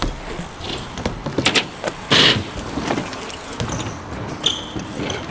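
BMX bikes riding skatepark ramps: tyres rolling with scattered knocks and clatter, and a short loud burst of noise about two seconds in.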